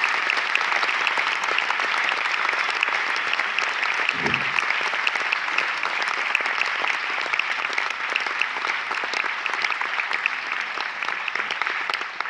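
Concert audience applauding, dense steady clapping that starts to thin out near the end.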